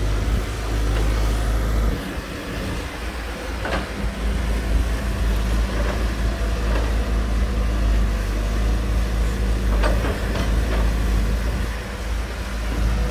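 Hydraulic excavator's diesel engine running steadily under load while a Volvo EC210D digs and swings. A few short knocks from the bucket and boom come about 4 and 10 seconds in.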